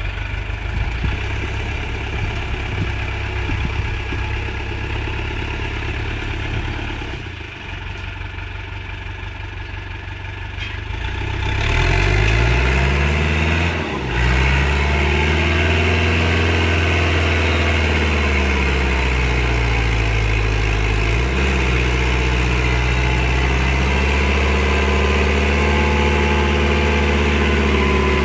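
Tractor engine running, then revved up about twelve seconds in, its pitch rising and falling a few times before holding steady at high revs.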